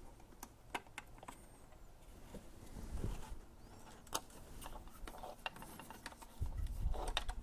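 Scattered small clicks and taps of a screwdriver and hands working on the plastic print-head carriage of a 3D printer, with a few soft bumps near the end.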